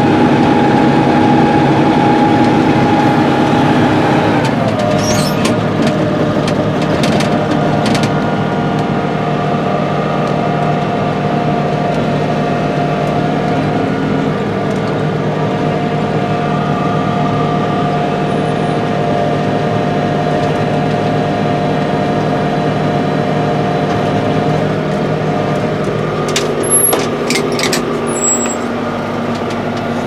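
John Deere 6410 tractor's diesel engine running steadily under load while pulling a John Deere 535 round baler in the field, heard from inside the cab. The engine note shifts slightly about four seconds in, and a few light clicks and rattles come around five to eight seconds in and again near the end.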